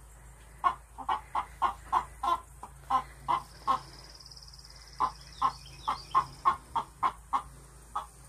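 Chickens clucking in a coop: a run of short, evenly spaced clucks, about three a second, with a brief pause near the middle.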